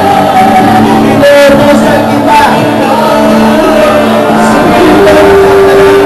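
Loud worship music with many voices singing and calling out, full of held notes.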